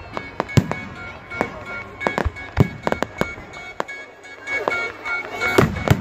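Aerial fireworks bursting in a public display: a rapid, irregular string of sharp bangs and crackles, with a cluster of louder bangs near the end. Music plays underneath.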